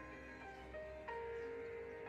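Background music: a slow melody of held notes, with a louder note coming in about a second in.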